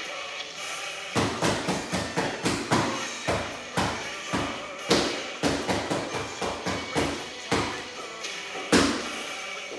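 Pair of spatulas beaten like drumsticks on a pillow, a run of sharp, uneven strikes starting about a second in, with a couple of harder hits near the middle and near the end, over background music.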